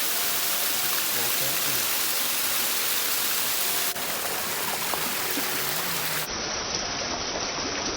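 Monsoon-fed waterfall: a steady, dense rush of falling water, changing abruptly in tone about four and six seconds in as the shots change.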